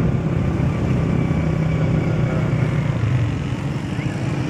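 Motorcycle engine running at a steady cruise while riding, a low drone under wind and road noise.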